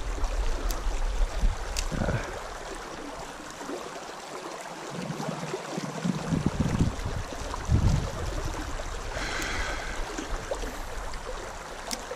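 Shallow trout stream running over a gravel riffle, a steady rushing wash, with a few low thumps mixed in.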